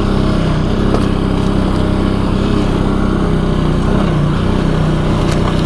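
ATV engine running at a low, steady speed as the quad rides along the trail, with a couple of faint clicks.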